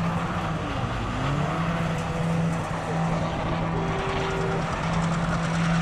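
Car engine held at high revs during a drift on loose dirt, with the noise of tyres spinning and sliding over the ground. The revs dip briefly about a second in and climb straight back.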